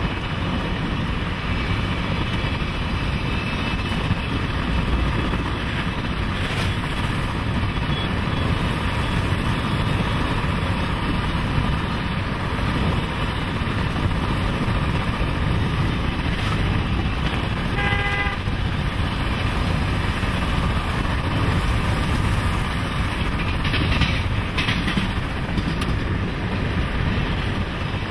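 Steady rushing wind and road rumble from a car driving alongside a moving passenger train, with the train's rolling noise mixed in. About 18 seconds in comes one short toot.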